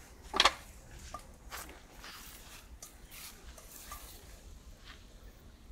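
A single sharp knock about half a second in, followed by faint rustling and a few soft clicks.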